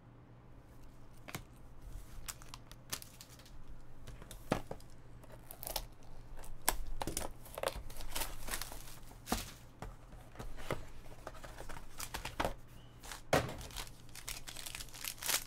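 Clear plastic wrap and the foil wrapper of a trading card pack crinkling and tearing as the pack is opened by hand, in irregular crackles that grow busier after the first second or so.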